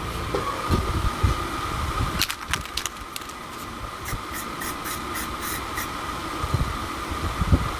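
Aerosol spray paint can with a trigger handle, sprayed in short bursts: a hiss that pulses about four times a second for some two seconds in the middle, after a few single bursts just before. A few low thumps near the start and the end.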